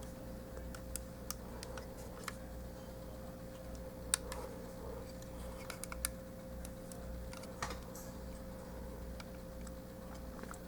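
Scattered faint clicks of a plastic Transformers action figure being handled, its parts and joints clicking as they are moved. A steady low hum runs underneath.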